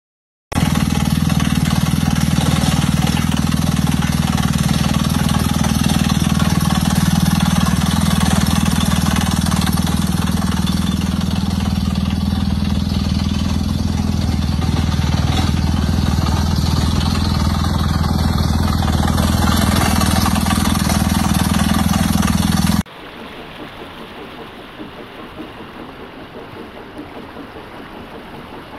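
Drilling rig's engine running steadily and loudly. About 23 seconds in it cuts off abruptly, and a quieter, steady hiss of water spraying from the newly drilled well takes over.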